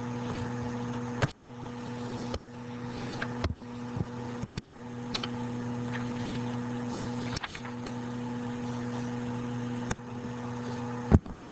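A steady low electrical or mechanical hum with a faint hiss, broken by a few sharp clicks and brief dropouts.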